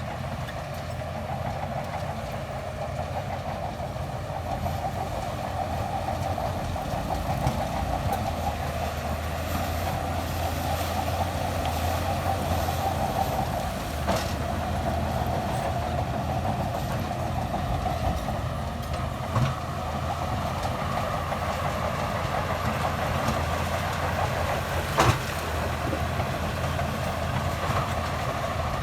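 Crawler bulldozer's diesel engine running steadily under work, with a sharp metallic knock about halfway through and another near the end.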